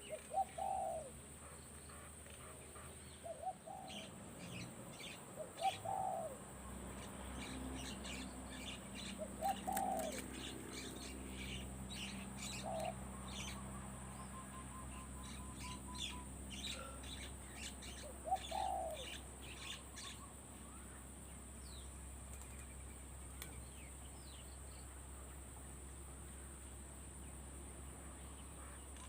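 Spotted dove cooing in short low phrases every few seconds, stopping about two thirds of the way through, while small birds chirp higher up and a steady high-pitched hiss runs underneath.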